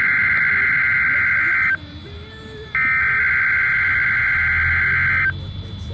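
NOAA Weather Radio receiver sounding the SAME digital header of an Emergency Alert System weekly test. The data comes as harsh, buzzy bursts: the first cuts off about two seconds in, and a second, about two and a half seconds long, starts about a second later.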